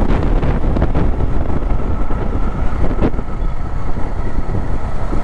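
Motorcycle riding at road speed, with wind rushing over a microphone inside the rider's helmet and the engine running steadily underneath.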